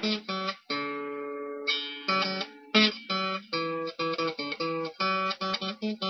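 Acoustic guitar music: chords plucked and strummed in quick succession, each ringing briefly before the next.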